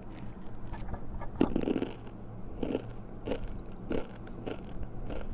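Crisp crunching and chewing of a fried spicy macaroni snack, bitten close to the microphone for ASMR, in a string of sharp crunches about half a second to a second apart.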